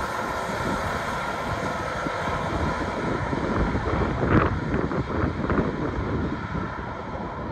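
Wind buffeting the microphone, with a group of cars faintly audible beneath it as they drive away slowly.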